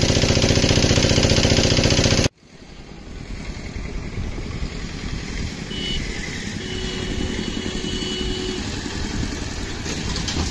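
An engine running loud and close, with a steady pitch; it cuts off abruptly about two seconds in. After that comes a quieter, steady rumbling noise with a couple of faint thin tones.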